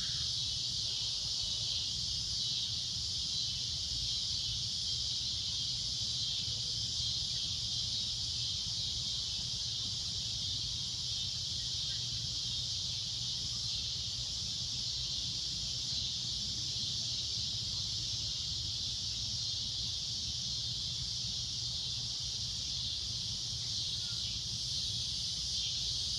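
Cicadas droning: a loud, shrill, steady buzz with no breaks.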